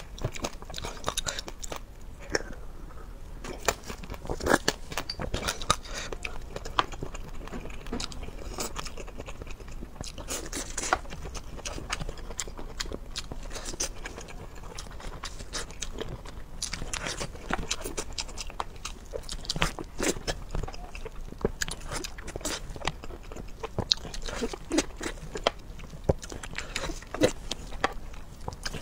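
A person eating close to a microphone: bites and chewing, with many irregular sharp crunches.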